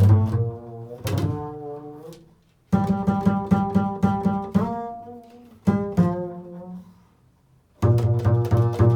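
Improvised solo instrumental music on a string instrument: held notes that slide in pitch and fade, alternating with passages of rapidly repeated notes.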